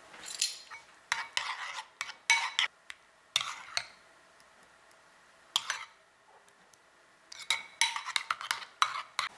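A metal spoon stirring thick, creamy mayonnaise and sour cream dressing in a stainless steel bowl, scraping and clinking against the bowl in irregular spells. Two short pauses come in the middle, and a busier run of strokes comes near the end.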